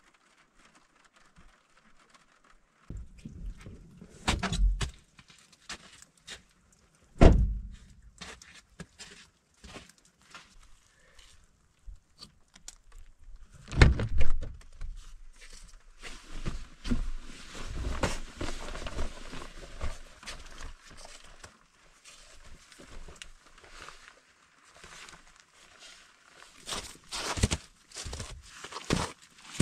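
Irregular thuds and knocks from handling a Jeep Wrangler, the loudest about 7 and 14 seconds in, between scuffs and footsteps in wet snow and mud.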